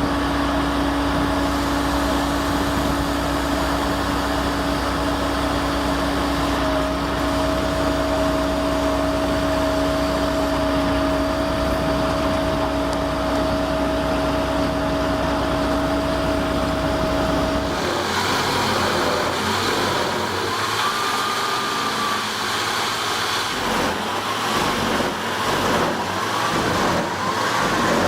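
Heavy machinery engine running steadily with a constant hum. About two-thirds of the way through, the sound cuts abruptly to a different, more uneven machine noise with a faint wavering whine.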